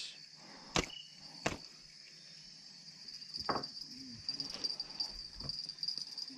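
Night insects chirring in a steady high trill that grows louder after a few seconds. Two sharp clicks come about a second in and again half a second later.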